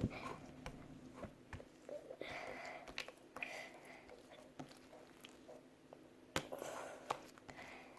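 Quiet sticky squelches and small clicks of very sticky slime being pressed and pulled apart with the fingers, with a sharper click about six and a half seconds in.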